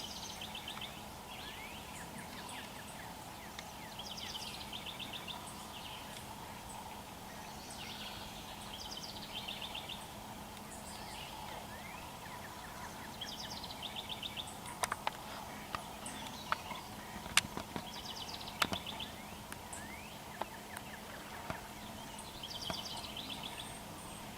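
Small birds singing short, quickly repeated trilled phrases every couple of seconds. Several sharp single ticks or taps come through in the middle stretch, over a faint steady hum.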